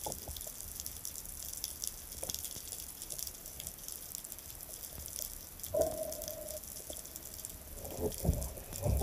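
Sea water heard from just below the surface: a steady faint crackle of small ticks and clicks with gentle water movement. A brief muffled tone comes about six seconds in, and a few dull thumps sound near the end.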